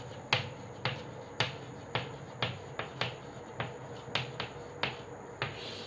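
Chalk tapping on a blackboard while writing letters: a series of short, sharp clicks, about two a second, as each stroke meets the board.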